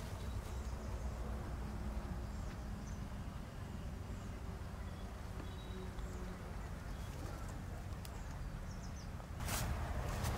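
Outdoor field ambience: a steady low rumble with a few faint high bird chirps, and a louder rush of noise starting near the end.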